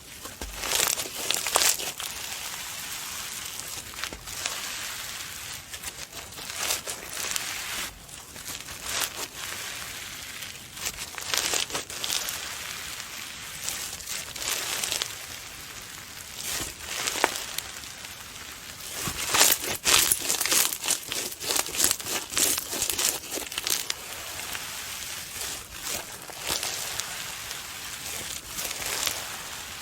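Slime being played with by hand: irregular sticky crackling and popping, busiest about two-thirds of the way through.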